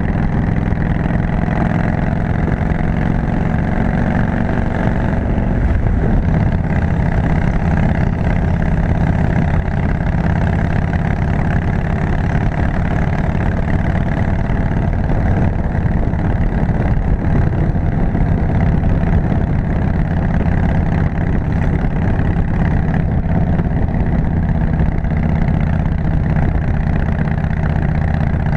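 Harley-Davidson motorcycle's V-twin engine running steadily while riding at road speed, with wind and road noise.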